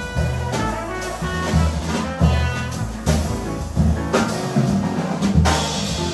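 Live jazz from a quartet of trumpet, piano, double bass and drum kit, with the drum kit to the fore, its strikes falling about once a second over pitched lines and walking bass notes.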